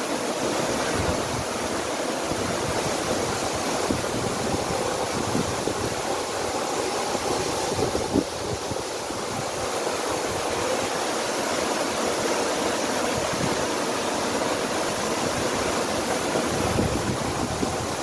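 Waterfall: water pouring down a tall rock face and splashing into the pool below, a steady rush.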